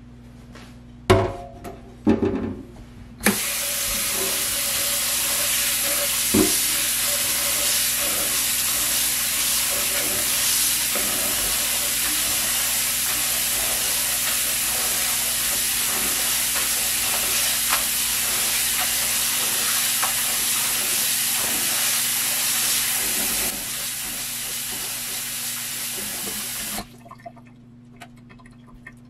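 A glass bowl knocks a few times against a stainless steel sink. Then a kitchen tap runs steadily into the bowl of bean sprouts while a hand stirs them. Near the end the running water softens a little, then cuts off suddenly as the tap is shut.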